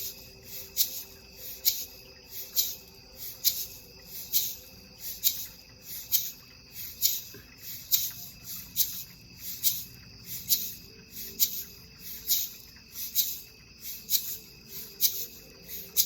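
High chirping pulses repeating evenly about once a second, over the faint steady ringing of quartz crystal singing bowls.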